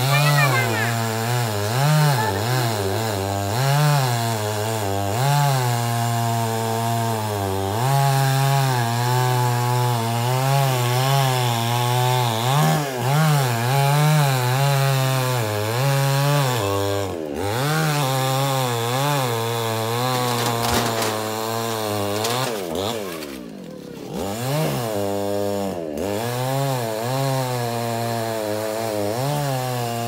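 Chainsaw cutting into a jackfruit tree trunk, its engine pitch rising and falling over and over as the chain bites and eases. About three-quarters of the way through the engine drops lower and quieter for a moment, then revs back up.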